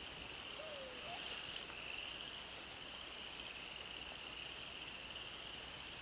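Insects trilling steadily at one high pitch, with a faint short call about a second in.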